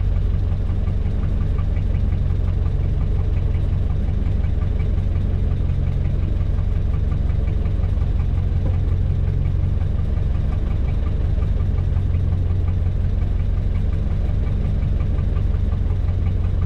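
Fishing boat's engine running at a steady idle, an even low hum that does not change.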